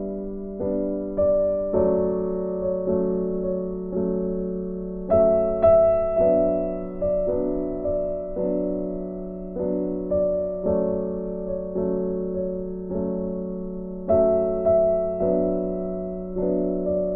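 Background music: a soft piano melody, one note after another, each ringing and fading.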